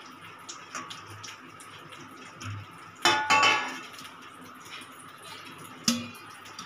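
Stainless steel steamer pot and perforated plate clinking as semolina balls are set on it: a few soft taps, then two sharp ringing metal clinks about three seconds in and another near the end.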